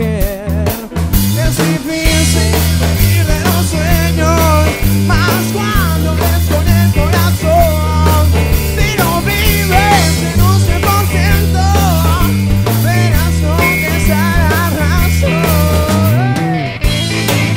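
A band playing live, with a steady bass guitar line and guitar under a male singer's wavering vocal melody.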